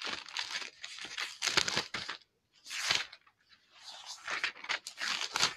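Irregular crinkling and rustling from something handled close to the microphone, coming in bunches with a short lull about two seconds in.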